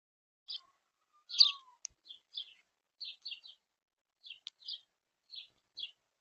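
Bird chirping: a dozen or so short, high chirps at irregular intervals, with two sharp clicks among them.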